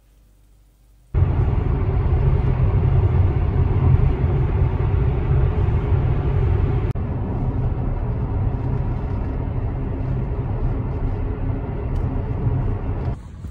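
Steady low rumble of road and engine noise heard from inside a moving car at motorway speed, starting suddenly about a second in after a near-silent moment.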